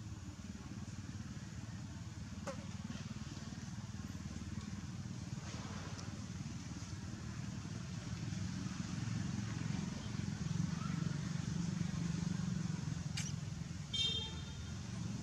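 Low, steady engine rumble of a motor vehicle, growing louder about two-thirds of the way through, with a brief high-pitched chirp near the end.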